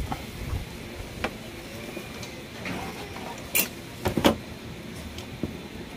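A few knocks and clunks as an LED TV is handled and turned over on a workbench: one about a second in, then a cluster of louder ones a little past halfway.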